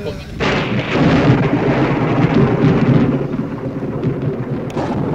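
A long roll of thunder that breaks in suddenly about half a second in, rumbles loudest for a couple of seconds, then slowly dies away.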